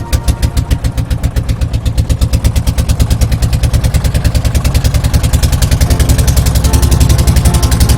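Engine of a river boat running steadily, a rapid, even chugging of about ten beats a second.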